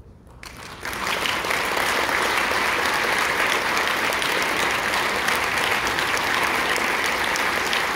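Audience applause breaking out about half a second in, swelling within a second to a steady, loud ovation of many hands clapping.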